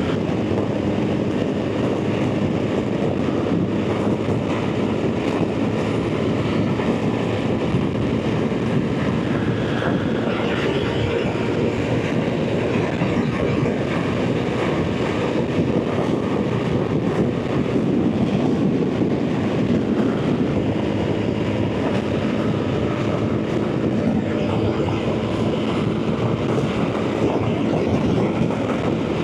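BMW R 1300 GS Adventure's boxer twin engine running steadily at highway cruising speed, mixed with wind and road noise.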